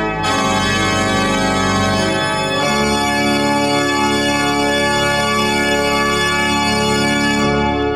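Baroque pipe organ built by Johann Gottfried Halbich playing full sustained chords. The harmony shifts about a third of the way in, and the held closing chord is released near the end, leaving the church's reverberation to die away.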